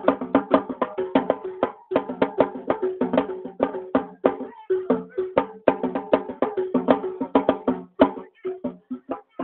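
Music: a fast instrumental passage of tuned hand percussion, rapid struck notes on a few repeated pitches with no singing. Near the end the strikes thin out with short gaps.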